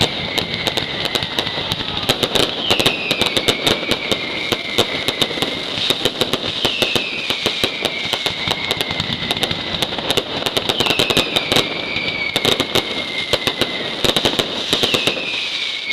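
Mascletà fireworks: a dense, fast run of firecracker bangs with no let-up, and over it a whistling firework's falling whistle that comes back four times, about every four seconds.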